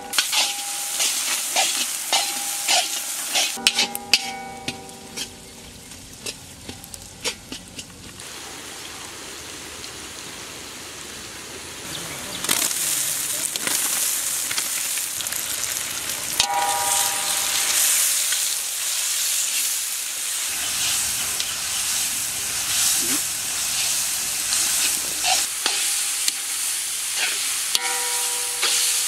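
Sliced onions and tomatoes frying in hot oil in a large iron kadai over a wood fire, stirred with a spatula scraping and clinking against the metal. The first part is knocks and clinks; about twelve seconds in a loud steady sizzle starts and runs on.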